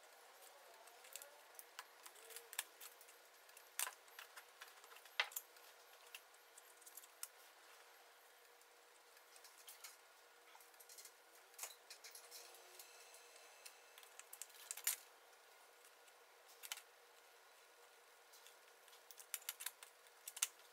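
Faint, scattered clicks and taps of small wooden veneer pieces and hand tools being handled and pressed into place, at uneven intervals, with a sharper tap about five seconds in and another about fifteen seconds in.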